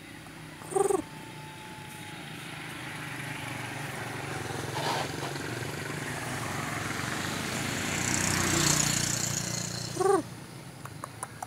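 A rooster gives two short clucking calls, one near the start and one near the end, while a passing vehicle's noise swells to a peak shortly before the second call and then fades.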